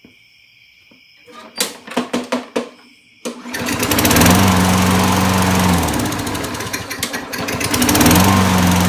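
A few clicks, then the Toro 6.5 HP four-stroke lawnmower engine starts abruptly about three seconds in and runs loudly and steadily. It is running again now that the bent kill-switch bracket has been straightened.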